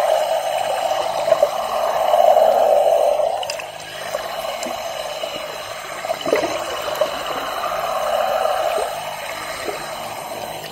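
Underwater water noise picked up by a submerged camera: a steady rushing hiss that eases off about three and a half seconds in, with a few faint ticks.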